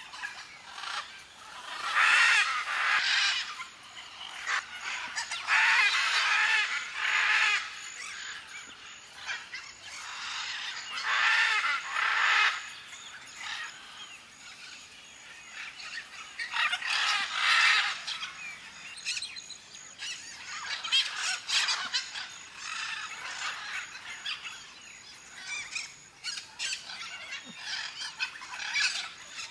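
Macaws calling with loud, harsh squawks in bouts of a second or two, repeated every few seconds, with fainter bird calls in between.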